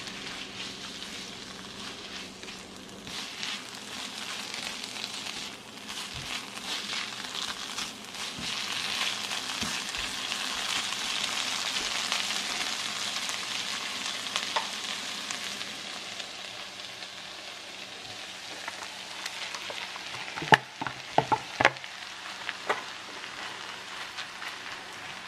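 Sliced onions sizzling as they fry in a nonstick pan, stirred and scraped with a silicone spatula; the sizzle swells through the middle. Near the end comes a quick run of sharp knocks.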